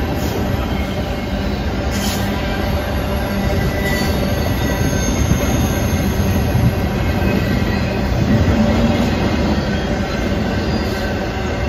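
BNSF double-stack intermodal freight train's well cars rolling past close by: a steady rumble and rattle of steel wheels on rail, with brief high-pitched wheel squeals about four to five seconds in.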